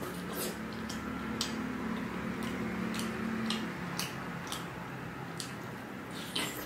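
Close-miked chewing of crispy paneer: irregular wet mouth clicks and smacks, roughly one or two a second, with a louder smack near the end as the fingers go into the mouth.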